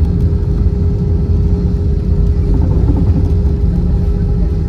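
Cabin noise inside an Airbus A320-216 rolling on the ground after landing: a steady low rumble from the wheels and CFM56 engines, with a steady hum over it.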